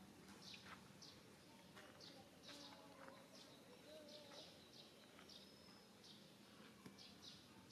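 Faint chirping of small birds: short high chirps, a couple each second, with one thin held whistle about five seconds in.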